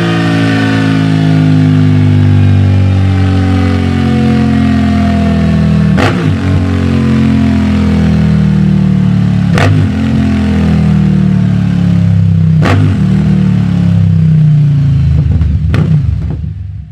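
Yamaha V-Max 1700's 1679 cc V4 engine running through Delkevic SL10 silencers, its note slowly falling in pitch. Four sharp clicks break in about three seconds apart, and the sound fades out at the end.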